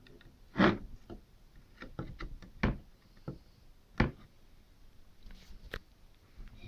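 Irregular knocks and clicks of computer parts being handled and set down on a hard surface, about half a dozen; the loudest come about half a second in and again at about four seconds.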